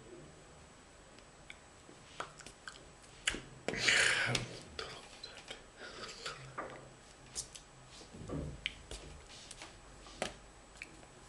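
Hands and sleeves of a person signing: scattered soft taps, clicks and rustles as the hands meet and brush the sweater, with a louder rustle about four seconds in.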